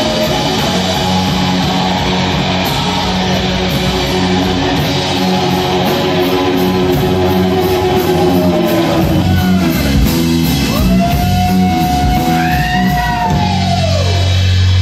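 Live rock band playing: electric guitar, bass guitar and drums. Past the middle the guitar plays swooping notes that bend up and down in pitch, over a held low bass note near the end.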